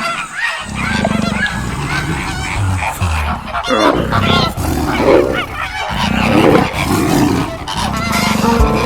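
Animal calls: a quick series of short calls that rise in pitch, about two a second, then louder, lower calls from about three and a half seconds in.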